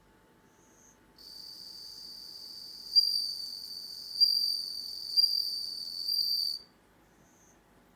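Japanese bell crickets (suzumushi) singing: a high, ringing trill starts about a second in and runs unbroken until near the end, swelling in loudness about once a second. Fainter short high chirps come before and after it.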